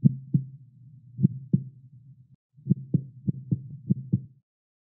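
Heartbeat sound effect: low double thumps over a steady low hum, two slow beats followed by three quicker ones, stopping shortly before the end.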